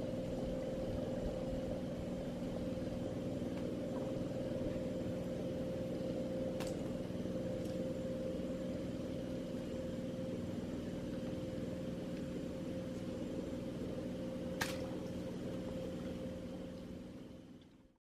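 Small boat's engine running steadily at an even pitch, then fading out near the end.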